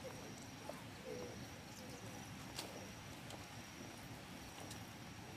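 Faint rustling and light clicks of gloved hands picking through dry debris on a split-bamboo mat, over a thin steady high whine. A brief faint chirp sounds about a second in.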